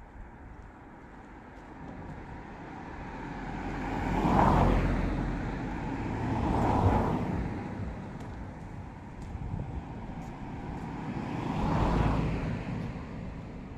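Three cars passing by on the road one after another. Each one's tyre and engine noise swells and fades over a couple of seconds: about four seconds in, near seven seconds, and near twelve seconds.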